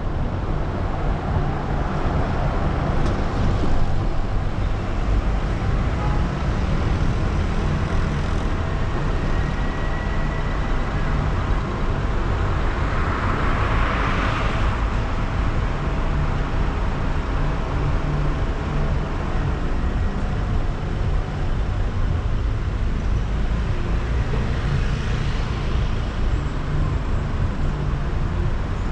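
Road traffic at a city junction, heard from a car standing at a red light: a steady low rumble, with one passing car swelling and fading about halfway through.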